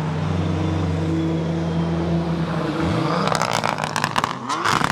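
A race car engine sound running at a steady pitch, giving way in the second half to a rapid clatter of clicks and knocks.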